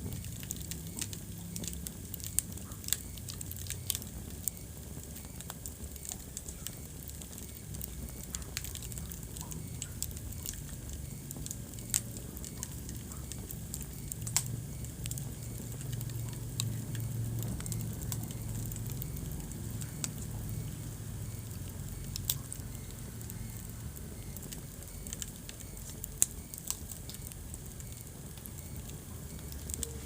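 Wood fire burning in a fireplace: a steady low rumble and hiss of the flames with irregular sharp crackles and occasional louder pops.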